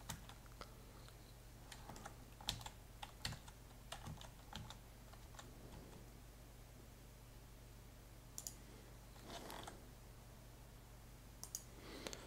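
Faint, scattered clicks of a computer mouse and keyboard, a few close together then single ones spread apart, over a low steady hum.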